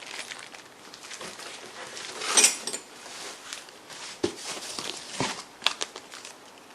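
Small parts and packaging being handled: scattered light clicks and knocks, with one louder rustle and jingle about two seconds in.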